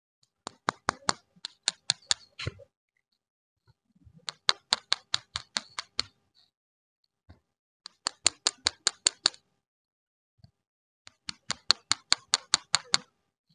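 Four runs of quick, sharp clicks, each of about nine or ten evenly spaced clicks at roughly five or six a second, with short pauses between the runs.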